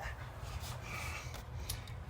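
A few faint light clicks from handling the laptop's plastic case during reassembly, over a steady low hum.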